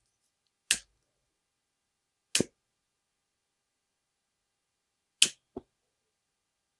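A lighter being clicked to burn off the ends of bowstring serving thread: four short, sharp clicks, one about a second in, one near two and a half seconds, and a close pair near the end.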